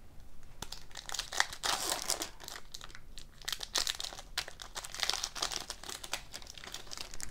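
Foil wrapper of a hockey card pack being torn open and crinkled by hand: a continuous run of irregular crackles and small tearing sounds.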